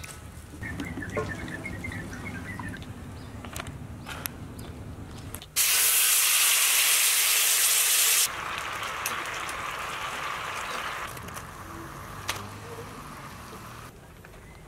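Liquid sizzling loudly as it is poured into a hot wok, a hiss that starts and stops abruptly and then carries on as a softer sizzle that fades away. Before that, a quieter stretch with short bird chirps.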